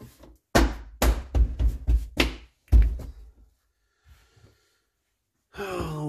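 Hand knocking the rear hatch's interior trim panel into place, seating it: a quick run of about seven sharp thunks over two seconds.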